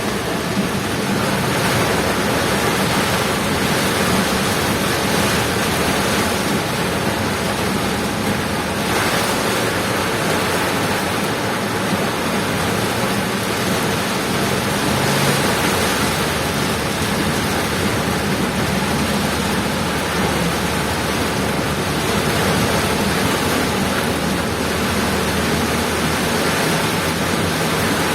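Heavy rain falling on a moving car, mixed with steady tyre and road noise, heard from inside the cabin as one loud, unbroken hiss.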